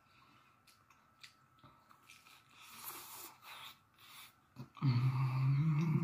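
Faint chewing and mouth clicks from eating a crispy fried beef birria taco. About five seconds in comes a long, loud closed-mouth "mmm" of enjoyment, rising slightly in pitch.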